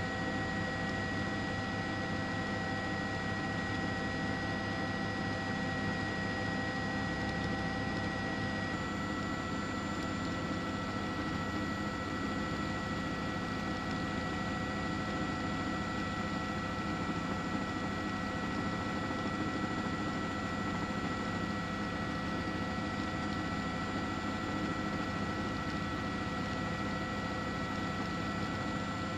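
Steady mechanical drone with a constant hiss and several faint steady tones. The tones change abruptly about nine seconds in.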